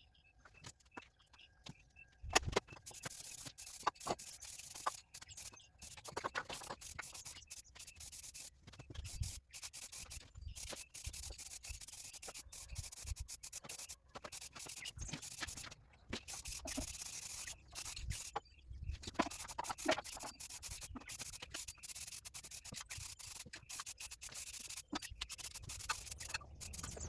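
Aerosol spray paint can spraying an engine in many short bursts of hiss, starting about two seconds in, with brief pauses between passes.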